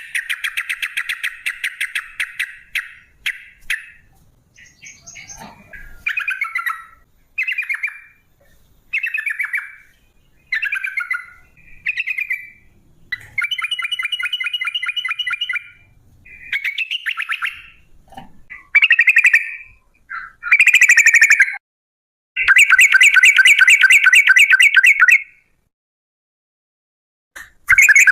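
Yellow-vented bulbul (trucukan) singing: a series of short, bubbly chirped phrases mixed with rapid rattling trills, the longest trill lasting about three seconds a little after two-thirds in, then a brief silence before the song resumes at the end.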